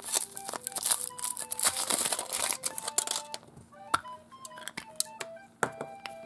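Chocolate egg's foil wrapper crinkling and tearing as it is unwrapped for about the first three seconds, then a few sharp clicks, over soft background music.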